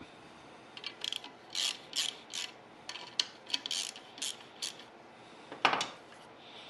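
Hand socket ratchet clicking in short strokes as it loosens a nut on a satellite-dish mount, then a single louder clunk near the end.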